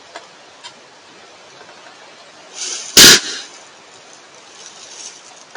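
A deer buck sneezing once: a short rush of breath about two and a half seconds in, then a single sharp, very loud blast of air through the nose. Two faint clicks come just before it, near the start.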